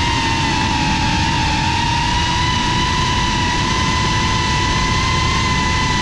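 Geprc FPV quadcopter's motors and propellers whining at a steady high pitch in cruising flight, over a rough low noise.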